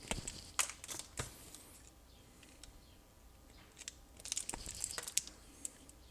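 Wire strippers clicking and pulling insulation off small-gauge sensor wires: a few sharp snaps in the first second, then a cluster of small crackling clicks about four to five seconds in.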